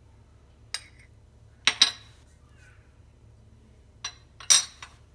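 A metal spoon clinking against a stainless-steel mixer bowl as pepper paste is knocked off it. There is a single clink under a second in, a loud double clink near two seconds, and another pair near the end.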